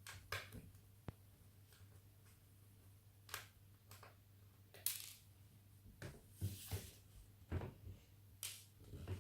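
Faint, scattered clicks and scrapes of a small Phillips screwdriver working screws out of a laptop's plastic casing, with light handling of the plastic.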